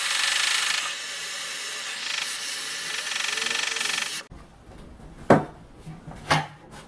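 Small handheld gas torch hissing steadily as it heats the steering rack housing around a press-fit bearing, to expand the metal so the bearing releases. The hiss cuts off suddenly about four seconds in and is followed by a few sharp knocks.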